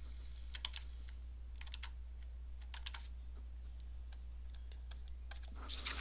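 Stylus tapping and scratching on a tablet screen while handwriting: scattered irregular sharp clicks, over a steady low electrical hum.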